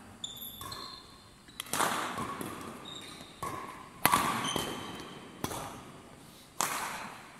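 Badminton rackets striking a shuttlecock in a fast rally: about four sharp hits, each ringing out in the large hall. The loudest hit comes about four seconds in, from a jump smash. Court shoes squeak briefly on the floor between shots.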